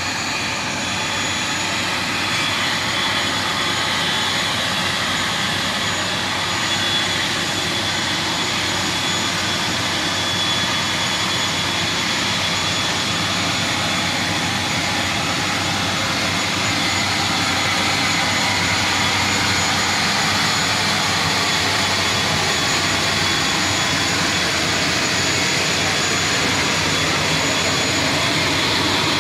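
Aircraft turbine engine running at a steady idle: a loud, unbroken whine with high steady tones over a rushing roar, growing a little louder toward the end.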